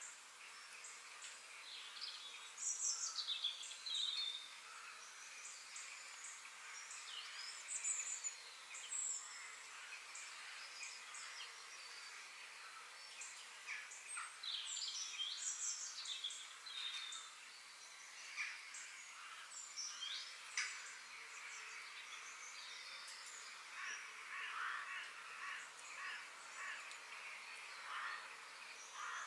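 Songbirds chirping and singing in woodland, with short calls and quick rising and falling phrases coming every second or two, over a steady background hiss of forest ambience.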